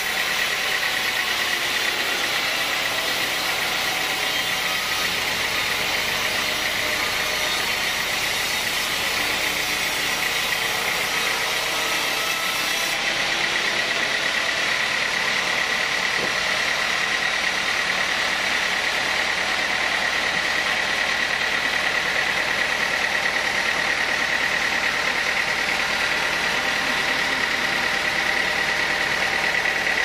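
Sawmill band saw blade running and cutting lengthwise through a teak log: a steady high whine over a continuous sawing hiss, unbroken and even in loudness.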